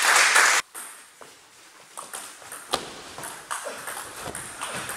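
Table tennis ball clicking off the table and the bats in a rally: an irregular series of sharp ticks in the hall. It follows a loud noisy burst that cuts off abruptly about half a second in.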